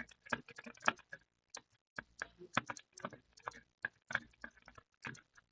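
Faint, irregular small clicks and ticks, about two or three a second, of a hand tool scraping and picking at the burnt layers of a laptop motherboard's circuit board.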